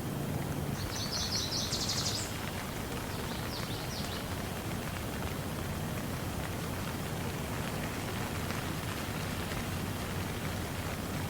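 Steady rain falling, an even hiss with a low rumble underneath. A bird gives a quick, high, rapid trill about a second in and a shorter one a couple of seconds later.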